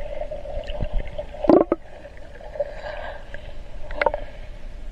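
Muffled water sloshing and gurgling around a waterproof action camera's housing as it is dipped at the surface, under a steady hum. A sharp knock comes about one and a half seconds in, the loudest moment, and a smaller one at about four seconds.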